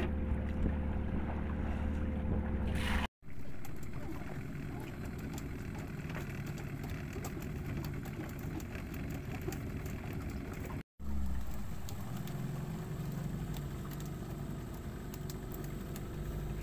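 Small fishing boat's engine running steadily under way, with water and wind noise around it; the sound drops out abruptly twice.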